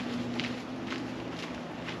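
Footsteps on a dirt footpath, about two steps a second, over a steady low hum.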